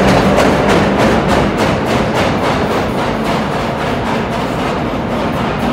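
Vintage R1/R9-type subway cars pulling out of the station, wheels clacking over rail joints in an even rhythm of about three clacks a second, over a low steady hum.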